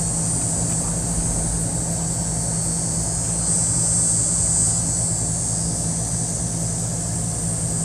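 Steady outdoor background drone: a low machine hum under a high buzzing band that grows louder around the middle.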